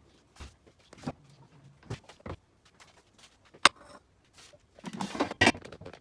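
Kitchenware being handled on a countertop: an air fryer basket pulled out and set down, and a plastic lid laid on the cooktop, giving scattered light knocks and clicks. There is one sharp click about three and a half seconds in, and a brief rustling clatter near the end.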